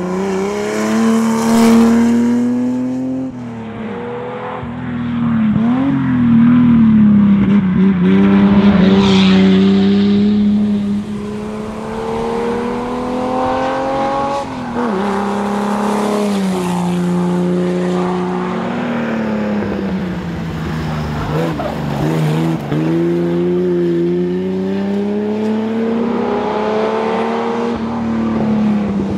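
The GMC Jimmy rally car's engine at full effort on a tarmac stage, heard from on board. The revs climb and fall back sharply at each gear change, several times in a row.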